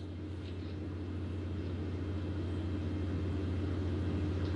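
Steady low hum with a faint even hiss, the background noise of a home video-chat microphone, growing slightly louder.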